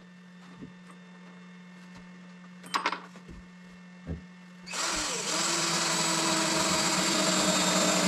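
A power drill runs steadily for about three and a half seconds, starting a little past halfway. Before it there is a light click and a few soft knocks.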